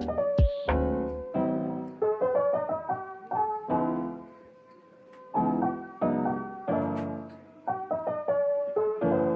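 Background piano music: a gentle instrumental of soft piano phrases, which fade almost away about four and a half seconds in before the piano picks up again.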